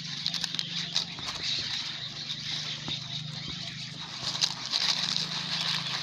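Crackling rustle of dry leaves, twigs and a plastic wrapper being handled on the ground, with scattered sharp clicks, over a steady low hum.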